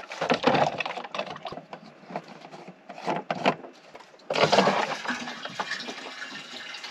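Water splashing and pouring between a plastic water jug and a boat's freshwater tank through its open inspection hatch. It comes in uneven splashes at first, then a louder rush of water a little over four seconds in that slowly dies away.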